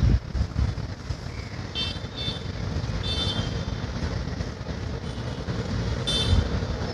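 A passing train rumbling steadily, with short high-pitched squeals from its wheels several times.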